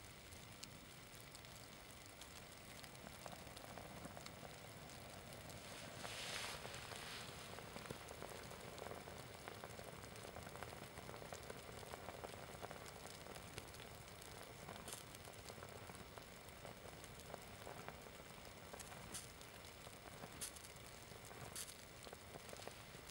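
Synthetic Adidas sports shirt burning with a small flame, faintly sizzling and crackling with scattered small ticks; the sizzle swells briefly about six seconds in.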